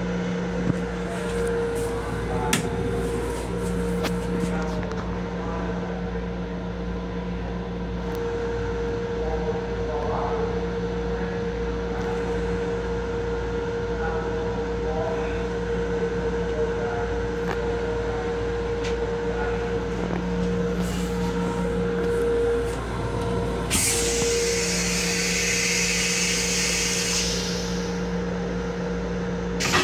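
Interior sound of an MTA Long Island Rail Road M7 electric railcar: a steady rumble with a constant two-tone hum, a few sharp clicks in the first few seconds, and a loud hiss lasting about three and a half seconds, starting about 24 seconds in.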